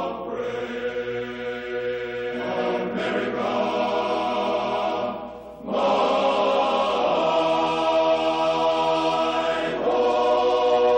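Slow choral music: long held chords that change every two to four seconds, with a brief drop in loudness about five and a half seconds in.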